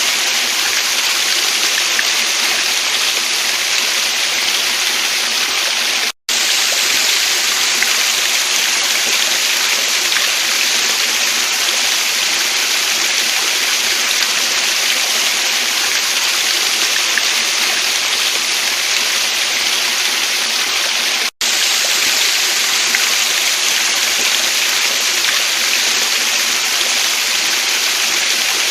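Water of a stream and waterfall rushing steadily, an even hiss strongest in the upper range. The sound cuts out for a split second twice, about six and about twenty-one seconds in.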